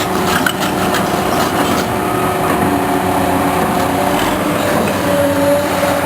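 Excavator's diesel engine running steadily, with a run of knocks and clatter in the first couple of seconds.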